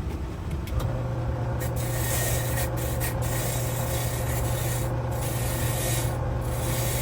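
Motorized buffing wheel running, with a corroded metal lock part pressed against it to buff the corrosion off. The motor hum starts about a second in, and a rasping hiss rides over it, breaking off briefly a few times as the part is lifted from the wheel.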